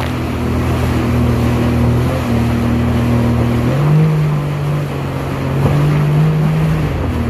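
Jet ski engine running at speed, its pitch stepping down and up a little as the throttle changes, over the rushing of water and spray.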